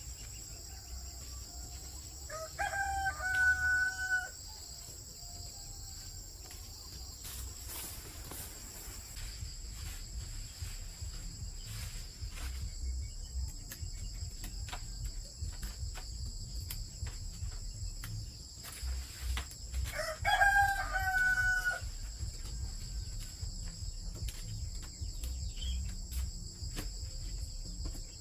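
A rooster crowing twice, once a few seconds in and again about two-thirds of the way through, each crow lasting about a second and a half, over a steady high drone of crickets.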